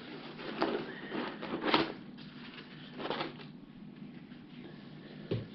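Hands lifting a metal control box out of a foam packing insert in a cardboard box: a few short rustles and scrapes, loudest about two seconds in, with a soft thump near the end.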